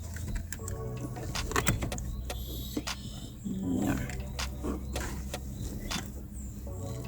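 Hands working a convertible car seat into place: scattered clicks, knocks and plastic rattles from the seat and its straps and buckles, over a steady low hum.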